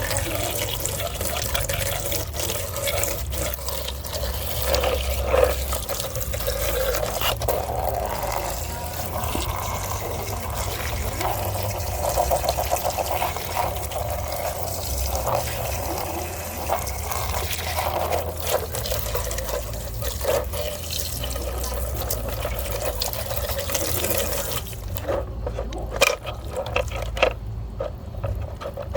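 Running water splashing steadily over toys being washed, with scattered knocks of handling. The water stops about 25 seconds in, leaving separate light clicks and taps.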